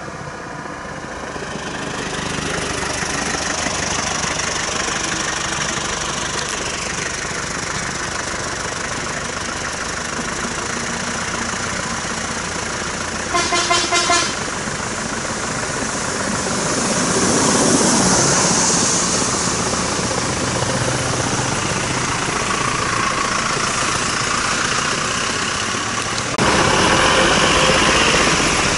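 Road traffic of cars and trucks running close by, with a vehicle horn sounding a quick run of short toots about halfway through. The traffic noise swells as a heavy vehicle passes close and steps up suddenly near the end.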